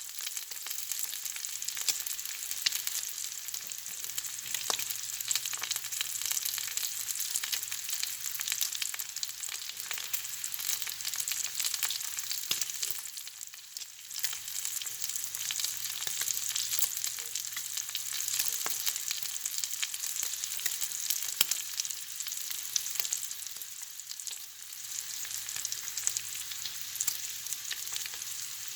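Bacon sizzling as it fries: a steady crackle thick with small sharp pops. It eases off briefly twice, once about halfway through and again later.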